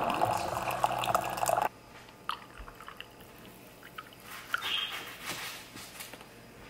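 Coffee machine running as coffee streams into a ceramic mug, a steady hum with splashing that cuts off abruptly a little under two seconds in. After that comes a faint trickle of milk being poured into the mug, with a few light clicks.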